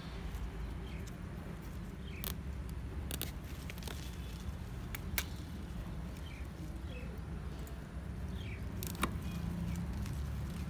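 Scattered soft clicks and rustles of hands handling a bare-rooted peepal tree, its roots and the plastic ties binding cuttings to the trunk, over a steady low rumble.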